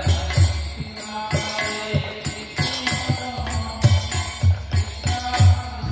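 Bengali kirtan music: a two-headed mridanga (khol) drum beats a steady rhythm while brass kartal hand cymbals clash on the beat, with voices chanting the kirtan.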